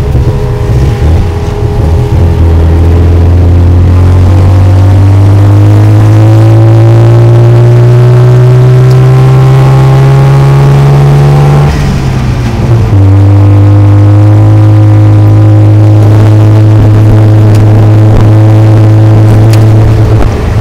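Tuk-tuk's small engine running under load, heard from the open passenger seat. Its pitch climbs slowly for about ten seconds, drops sharply at a gear change about twelve seconds in, then holds steady.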